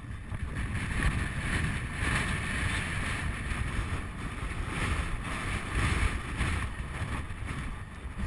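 Wind buffeting the microphone of a rider-mounted camera as the horse canters across open grass: a gusty rush, heaviest in the low end.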